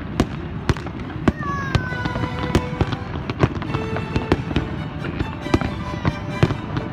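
Fireworks display: a rapid, irregular run of sharp bangs and crackles from bursting shells over a steady rumble, with a whistle falling in pitch about a second and a half in.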